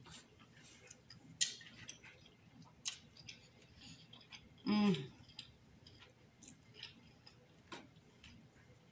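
Close-up eating sounds of snow crab: sparse wet clicks and mouth smacks while chewing and picking at the shell, with one short hum from the voice just before five seconds in.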